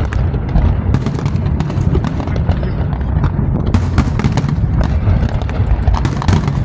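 Fireworks display going off: a continuous low rumble of bursts with many sharp pops and crackles.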